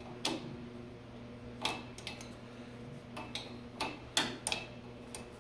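Half-inch open-end wrench clicking against the carburetor mounting nuts as it is turned and refitted in a cramped space: about half a dozen sharp metal clicks, irregularly spaced and closer together near the end.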